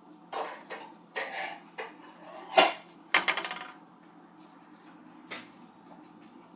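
Dishes and kitchen utensils being handled, clinking and knocking. There are several separate knocks, the loudest about two and a half seconds in, then a quick rattle just after three seconds and one more knock near the end.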